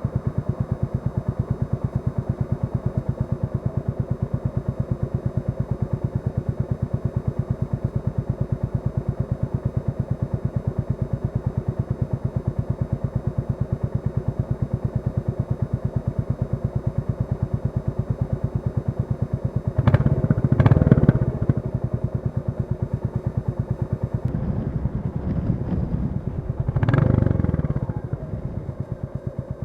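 Royal Enfield Classic 350 single-cylinder engine running steadily at low revs with an even, rapid pulse. Two short, louder surges come about two-thirds of the way through and again near the end.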